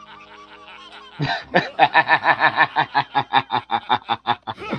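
Male cartoon character's long, rapid laugh, a cackle of short pitched pulses at about six a second, starting about a second in.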